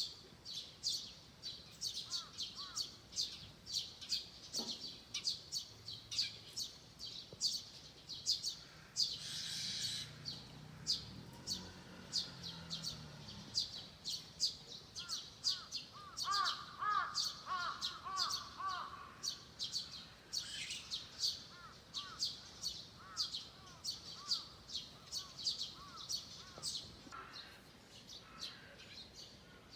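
Forest birds singing: a steady stream of short, high chirps, several a second, with a lower warbling song joining in for a few seconds past the middle.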